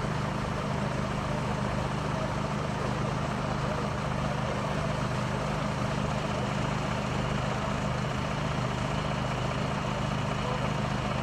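A large vehicle's engine idling: a steady low drone that does not change.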